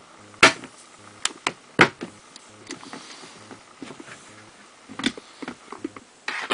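Scattered sharp knocks and taps on a clear plastic feeding tub, irregular and a few at a time. The loudest comes about half a second in and another near two seconds, with a few lighter taps about five seconds in.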